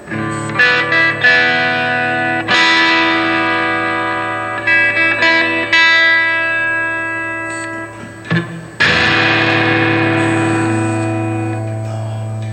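Electric guitar, a Gibson Les Paul, played through an Electro-Harmonix Oceans 11 reverb pedal. Chords are struck several times, then again about every three seconds, and each rings out in a long reverb tail.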